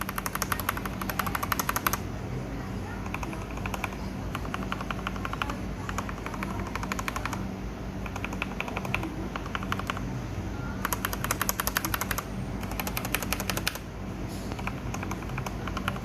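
Keys on a Royal Kludge G68 mechanical keyboard tapped rapidly in repeated bursts of fast clacks, each run lasting one to two seconds with short pauses between. This is a typing sound test of its stock RK switches, some of them freshly lubed.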